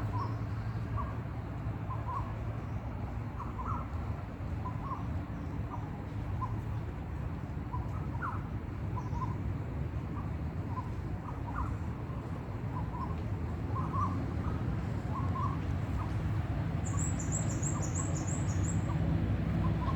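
Birds calling outdoors: many short, scattered chirps throughout, with a quick high-pitched trill about three seconds before the end, over a steady low background rumble.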